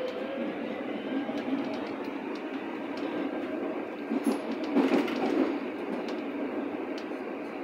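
Berlin U-Bahn small-profile train on line U2 running between stations: steady wheel-and-rail noise with scattered clicks from the track. It grows louder for a stretch a little past the middle.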